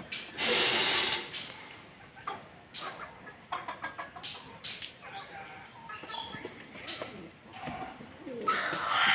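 Free-range chickens clucking and calling as they forage, with a short noisy burst about half a second in and a louder pitched animal call starting near the end.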